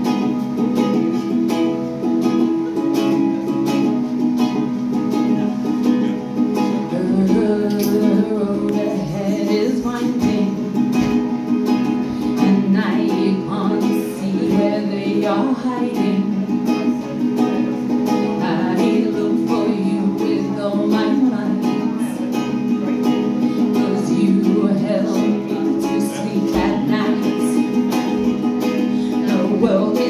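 Ukulele played at a steady, even rhythm, with a woman's singing voice over it from about seven seconds in.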